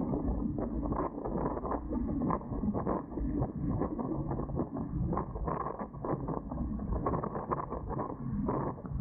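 Sailing noise aboard a Dart 18 catamaran under way: a steady low rumble of wind and water on the mounted camera, with many small irregular knocks and creaks from the boat's fittings.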